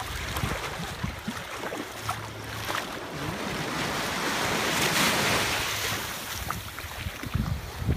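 Small waves breaking and washing up a sandy beach, the wash swelling to its loudest about five seconds in, with gusts of wind buffeting the microphone near the end.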